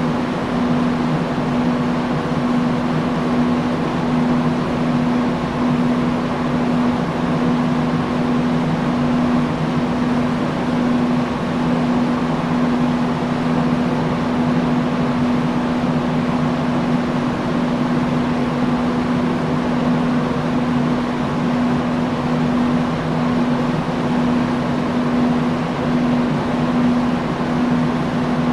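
Industrial fan running steadily: an even rush of air over a constant motor hum.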